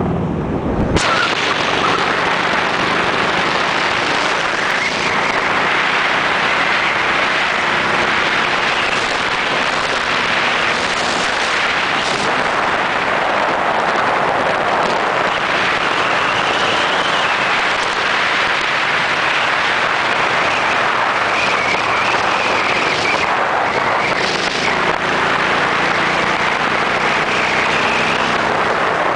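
Harley-Davidson Road King's V-twin engine running at steady cruising speed, under a constant rush of wind and road noise.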